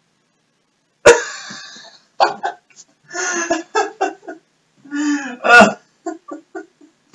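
A man laughing hard in loud, uneven bursts with gasps between them, starting suddenly about a second in and peaking again near the end.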